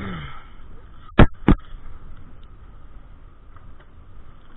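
Two sharp knocks about a third of a second apart, a little over a second in, over a faint steady background hum.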